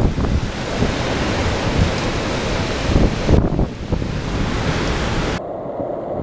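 Hurricane-force wind and driving rain making a dense rushing noise, with gusts buffeting the microphone. Near the end the sound turns duller, the high hiss dropping away and leaving mostly low wind rumble on the microphone.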